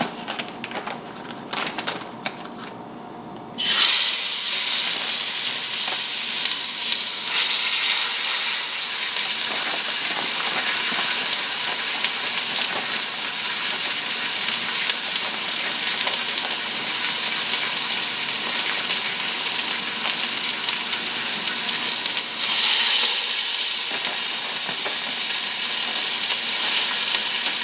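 Oxtail pieces sizzling loudly as they sear in hot coconut oil in a pot. The sizzle starts suddenly a few seconds in, after some light clicking, and swells again when another piece goes in near the end.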